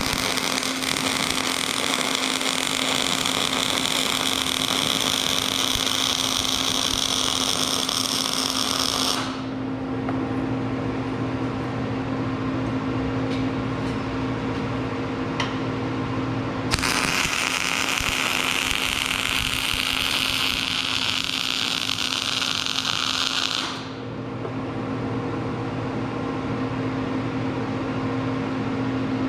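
A steady electrical machine hum, with two long runs of loud, high hissing from a metal-cutting or grinding tool working on steel, the first about nine seconds and the second about seven, each stopping abruptly.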